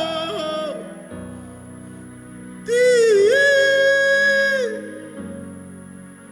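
Gospel worship singing over a soft keyboard. A sung line fades in the first second, the keyboard holds a chord, and about three seconds in a voice sings one long, loud held note lasting about two seconds before the keyboard is left alone again.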